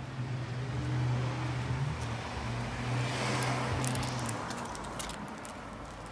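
A car driving past on the street: a low engine hum and tyre noise that swell to a peak a little after three seconds in, then fade away.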